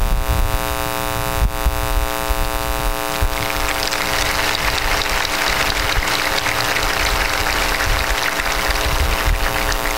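Crowd applauding, beginning about three seconds in and tapering off near the end, over a steady electrical hum and a low rumble.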